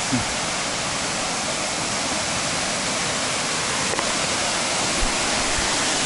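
Dzhuryn waterfall: water pouring over a wide rock ledge in a steady, full rush.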